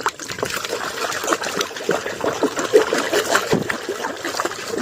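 Water splashing and dribbling in quick, irregular splashes as a muddy toy is washed by hand.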